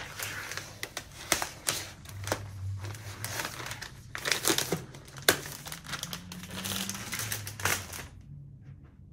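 Protective plastic film being peeled and crinkled off a new computer, with sharp crackles and snaps; it stops about a second before the end.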